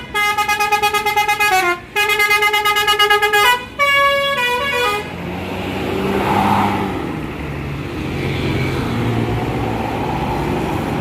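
A bus's basuri musical air horn plays a rapidly pulsing telolet tune in three short phrases, each ending with a downward slide in pitch. About five seconds in the horn stops, leaving a steady low engine rumble.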